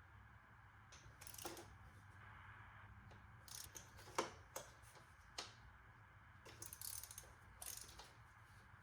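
Faint ratchet wrench clicking in short bursts as spark plugs are run in, with a sharper metallic clink about four seconds in.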